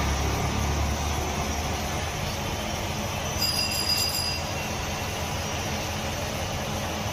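Gloved hand squishing and kneading raw chicken momo filling in a steel bowl, over a steady rumbling background noise. A brief metallic ring comes about three and a half seconds in.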